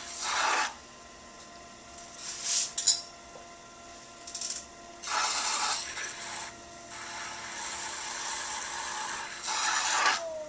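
A metal trimming tool scrapes wet clay at the base of a bowl on a spinning electric pottery wheel. It comes in repeated rasping spells, the loudest with a sharp scrape about three seconds in and another near the end, over the steady whine of the wheel motor.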